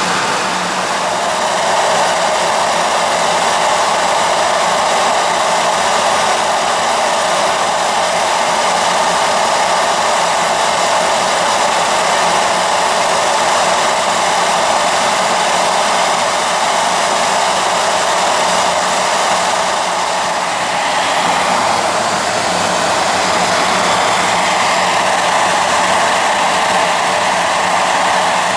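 Homemade turbojet engine built around a turbocharger, running steadily and loudly: a dense rushing jet noise with a thin high whine over it. The level dips briefly about twenty seconds in, then settles again with a slightly changed tone.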